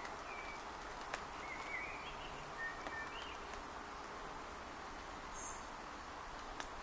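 Quiet outdoor background hiss with a few faint short chirps early on and a brief high note later, broken by two sharp clicks, one about a second in and one near the end.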